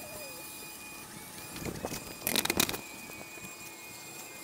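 A short run of sharp metallic clicks and clatter from a wrench being worked on the suspension bolts about two seconds in, over faint garage room noise.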